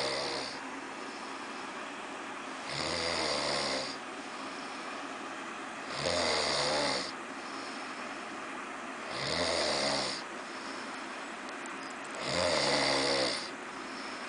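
Snoring in a steady rhythm: four long snores, about one every three seconds, each lasting about a second, with quieter stretches between.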